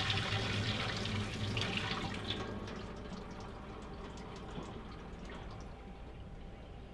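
Water being dumped out of a reverse osmosis unit's sediment filter housing, splashing steadily at first and tapering off to a trickle and a few drips.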